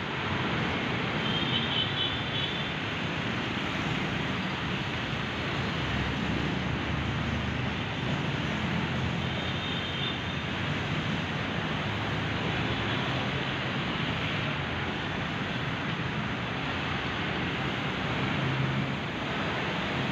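Steady street noise of traffic passing on the wet road, mixed with a hose jet spraying water onto the pavement.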